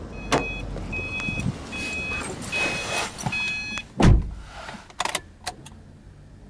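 Subaru Impreza's door-open warning chime beeping steadily, about once every three quarters of a second. About four seconds in it stops and the door shuts with a heavy thump. A few sharp clicks follow as the ignition is switched on, ahead of starting the engine.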